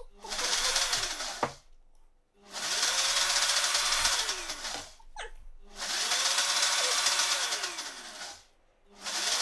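NutriBullet blender motor pulsing on pesto: it spins up and winds down in bursts of two to three seconds, three times with short pauses between, and starts a fourth burst near the end.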